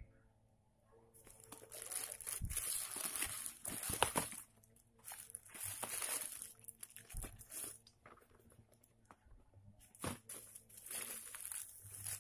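Thin white plastic bag crinkling and rustling as hands handle and unwrap it. The rustling comes in irregular spells with short quiet gaps between them.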